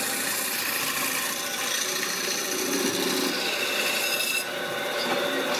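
Hand-held gouge cutting into a wooden disc spinning on a belt-driven lathe: a steady scraping hiss as shavings peel off, over the lathe's electric motor running. The scraping eases a little about four and a half seconds in.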